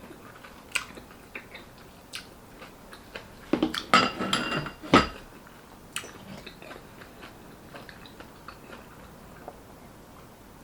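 Cutlery clinking and scraping against a dish, with a ringing cluster of clinks about four to five seconds in. Soft scattered clicks of chewing run before and after.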